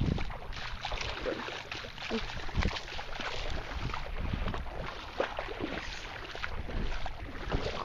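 Wind rumbling on the microphone, with scattered irregular knocks and rustles.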